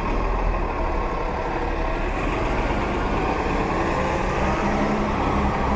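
A city bus's engine running close by, a steady low drone over continuous street traffic noise.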